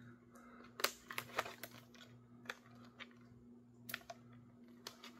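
Faint scattered clicks and taps, about seven, of a helmet-mounted thermal scanner being handled and taken off its helmet mount, over a faint steady low hum.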